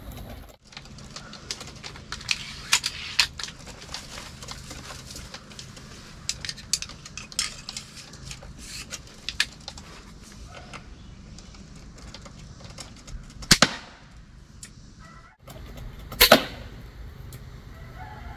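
Mini Striker 120-pound forward-limb pistol crossbow fired at a squirrel on a feeder: two loud, sharp snaps about 13 and 16 seconds in, after scattered light ticks and knocks. This is the follow-up bolt put into a squirrel that was still flopping after the first hit.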